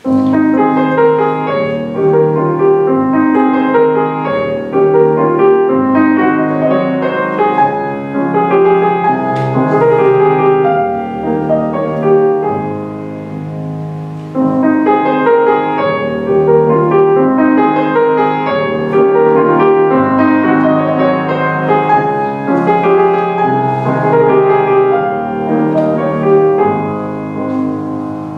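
Grand piano played solo, a continuous piece of many notes and chords, with a softer stretch about halfway through before it grows louder again.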